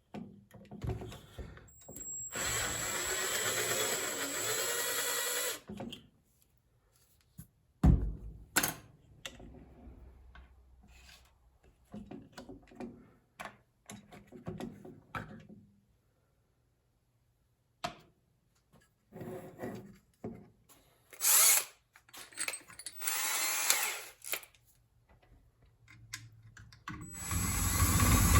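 Electric drill running in several bursts of a few seconds each, the longest near the start, with a high motor whine as each burst begins, drilling into metal to cut out the rivets that hold a dishwasher circulation pump together. A few sharp knocks come between the bursts.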